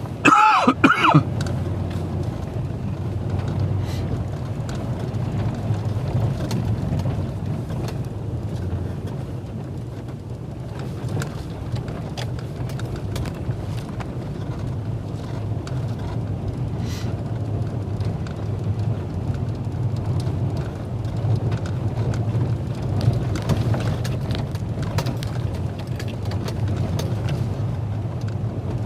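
Nissan Titan pickup driving off road through snow: a steady low engine and tyre rumble with scattered knocks and rattles from the bouncing truck. About half a second in, a loud, brief sound falling in pitch stands out.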